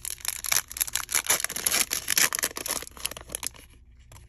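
A trading-card pack's foil wrapper being torn open and crinkled by hand. It makes a dense run of crackles that dies away about three and a half seconds in.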